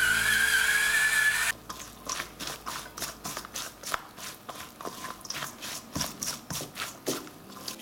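An electric pepper mill grinds with a steady motor whine that cuts off about a second and a half in. After it, a silicone spatula stirs chopped vegetables in a stainless steel bowl, a run of short scraping strokes.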